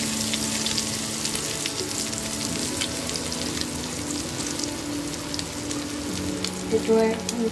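Egg and Malabar spinach omelette frying in oil in a pan on a low flame, a steady sizzle full of fine crackles and pops.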